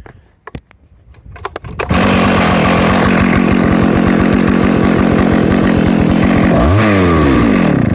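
Husqvarna 2100 CD two-stroke chainsaw engine, which comes in suddenly after a few clicks and runs loud and steady. Near the end it rises in pitch as it is revved, then cuts off abruptly.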